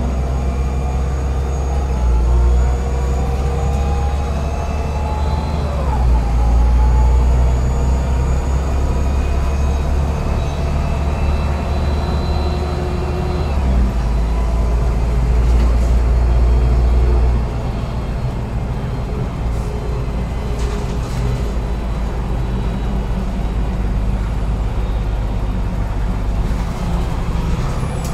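LAZ A183 city bus under way, with its engine making a heavy low drone and a faint whine that slowly shifts in pitch as the speed changes. The drone swells twice, then drops suddenly about two-thirds of the way through.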